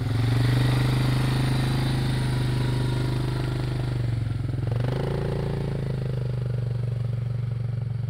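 Quad bike engine running steadily as it drives off at low speed, its pitch dipping briefly about four seconds in and then picking up again.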